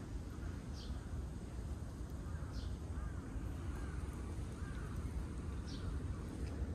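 Outdoor ambience: a steady low rumble, with short high bird chirps three times and a few faint rising-and-falling calls in the middle.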